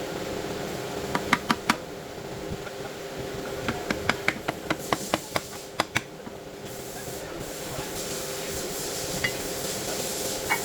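Sharp taps and knocks, most likely tools striking metal while a transmission is being worked on: three about a second in, then a quick run of about ten in the middle. A steady hum continues underneath.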